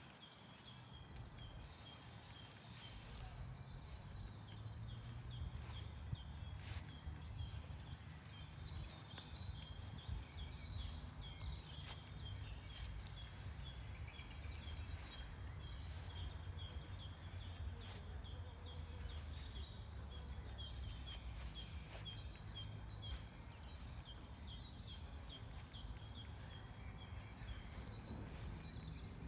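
Small songbirds singing in spring, with many short high chirps and trills repeating throughout. A steady low rumble runs underneath.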